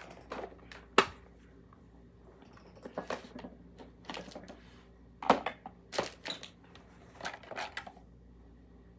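Scattered clicks, taps and rustles of small makeup items being handled, the sharpest click about a second in, over a faint steady hum.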